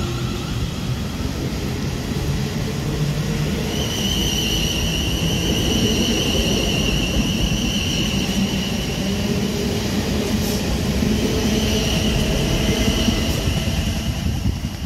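A two-unit South Western Railway Class 450 Desiro third-rail electric multiple unit running past close by, with a steady rumble of wheels on rail. From about four seconds in, a high-pitched whine sounds over the rumble.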